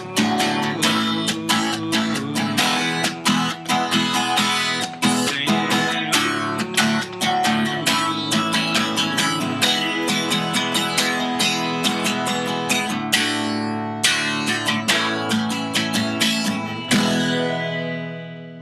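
Acoustic guitar strummed in a steady rhythm, ending on a final chord about seventeen seconds in that rings and fades.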